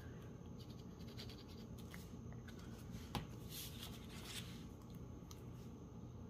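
Faint rustling, scratching and small taps of hands handling vellum paper and washi tape on a craft table, with a sharp click about three seconds in and a few short hissy rustles soon after.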